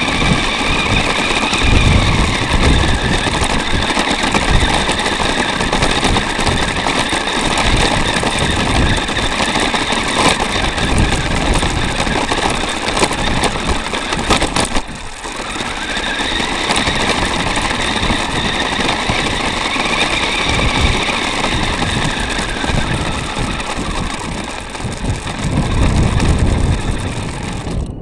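Onboard sound of a small 4x4 electric RC car driving: a whining motor and gears over a steady rushing noise, the whine rising and falling in pitch with the throttle. The noise briefly drops about halfway through.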